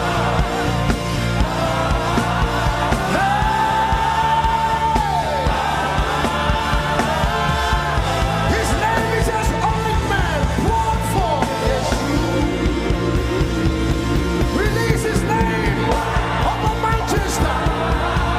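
Live gospel worship music: a voice sings long, held notes that waver and slide between pitches over a full band accompaniment.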